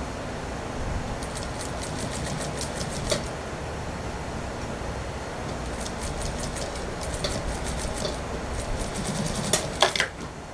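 Industrial computerised lockstitch sewing machine stitching a suit sleeve's armhole seam in two short runs of rapid ticking over its steady motor hum. A few sharp clacks near the end as the seam is finished.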